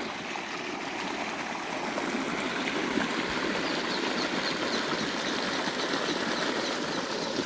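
Water gushing steadily from the outlet pipe of a tractor-driven well pump and splashing into a muddy channel, in full flow.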